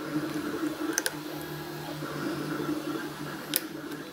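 Lock pick working the pins of a pin-tumbler challenge lock under heavy tension, with two sharp clicks about a second in and near the end. A steady low hum runs underneath.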